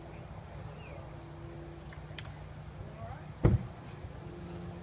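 Steady low outdoor hum with a faint steady tone, a few faint short chirps, and one sharp loud thump about three and a half seconds in.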